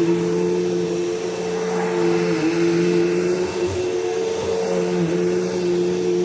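Bissell PowerForce bagless upright vacuum cleaner running steadily, its motor tone dipping briefly in pitch a few times.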